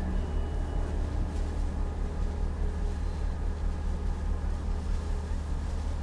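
Ship's diesel engine running under way, a steady low drone with an even throb.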